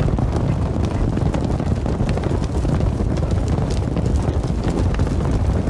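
A steady windy rumble with the faint hoofbeats of a galloping horse over it.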